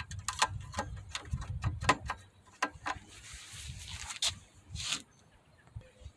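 Handling noise from working on a lawnmower: a quick run of light clicks and knocks in the first two seconds, a soft rustle, then a few more knocks.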